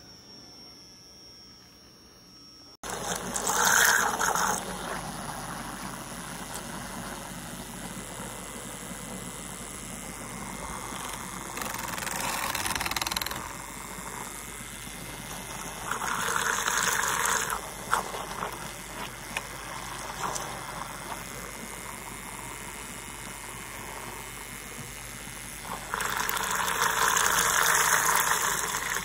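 MESOCO handheld cordless milk frother whirring as its small battery motor spins the wire whisk in a glass of coffee, churning and swishing the liquid. The sound starts abruptly about three seconds in and swells louder several times.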